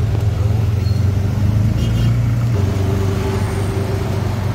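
Auto-rickshaw engine running steadily as the three-wheeler drives along, with road noise; its note drops slightly about two and a half seconds in.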